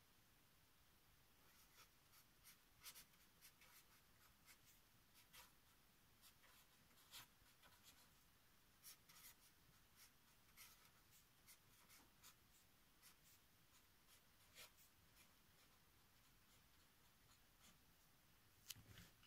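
Marker pen writing on paper: faint, scattered scratchy strokes that stop a few seconds before the end, followed by one louder tap near the end.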